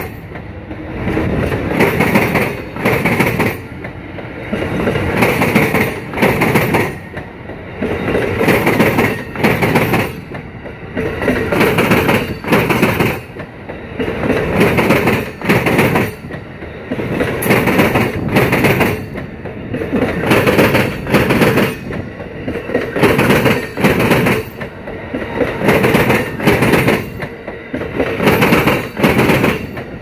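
Amtrak Superliner bilevel passenger cars rolling past close by, their wheels clattering over the rail joints in repeated surges about every second or so.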